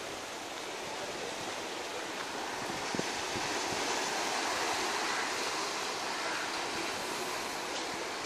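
Sea waves washing in over low black rocks at the shoreline: a steady surf hiss that swells a little midway.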